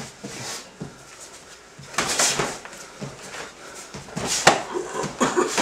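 Full-contact knockdown karate sparring: kicks and punches land on bodies and gi as several sharp slapping thuds, one cluster about two seconds in and the loudest strike about four and a half seconds in.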